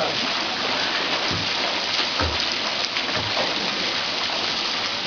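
Water splashing steadily in a stone bathing pool as swimmers move and kick through it, a continuous wash of small splashes.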